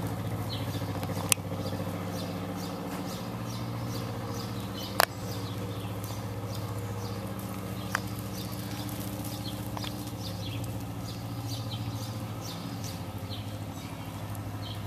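A horse trotting and cantering on soft arena sand under a steady low mechanical hum, with scattered faint high chirps and three sharp clicks, about a second, five seconds and eight seconds in.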